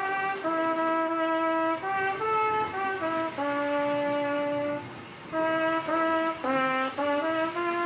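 Solo trumpet playing a melody of mostly held notes, with a short breath pause about five seconds in.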